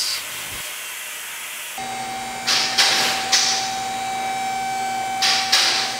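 A steady hiss, then, about two seconds in, a steady hum with several short bursts of loud hissing.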